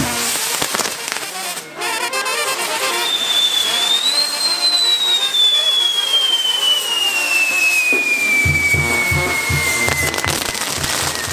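Castillo fireworks tower burning: a steady hiss and crackle of spinning spark wheels, with one long high whistle that starts about three seconds in and slowly falls in pitch. Band music plays along, its drum beat dropping out near the start and coming back late on.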